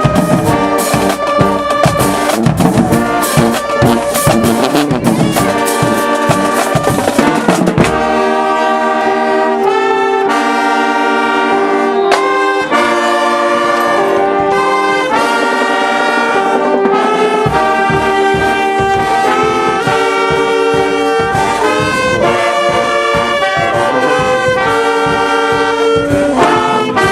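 A brass band playing with drums. For the first eight seconds or so, heavy rapid drum hits run under the horns; after that the brass holds long chords and short phrases with only occasional drum hits.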